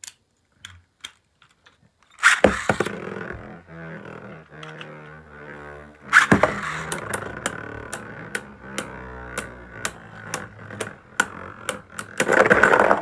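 Two Beyblade Burst spinning tops are launched one after another into a plastic stadium, about two and about six seconds in, and spin with a steady whirring hum. The tops clack against each other in rapid repeated hits, then clatter loudly near the end as both burst apart: a double burst finish.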